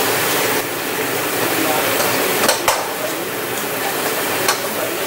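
King crab legs sizzling in a frying pan of garlic butter while being tossed with a spatula and tongs. A few sharp clicks of the utensils against the pan and shells stand out, two about two and a half seconds in and one near the end.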